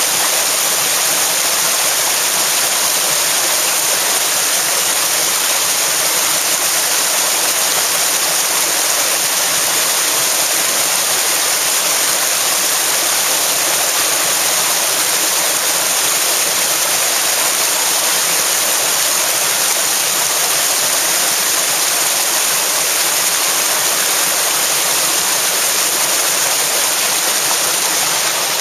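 Fast-flowing river water rushing and splashing over rocks, a steady loud rush.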